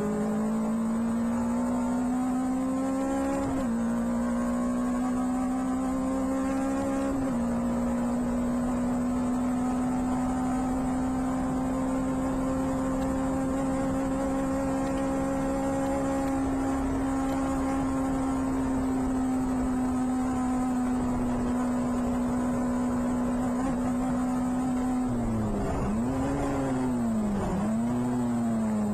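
Clubman-style Seven race car's engine at racing revs, heard from the open cockpit: the note climbs with two brief steps, then holds high and nearly steady on a long pull. Near the end the revs fall and rise twice in quick succession, as on braking and downshifting into a corner.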